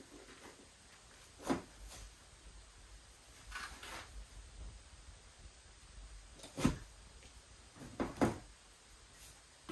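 A hiker's footsteps and gear knocking on a rocky mountain trail: a few sparse, irregular knocks, one about a second and a half in, a softer scuff near four seconds, a sharp knock near seven seconds and two quick ones about a second later.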